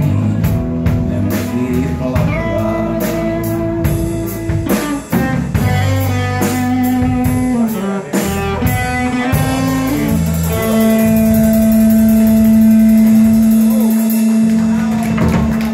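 Live rock band playing: electric guitar, bass guitar and drum kit, without vocals. About ten seconds in the band settles on one long held closing chord that rings out.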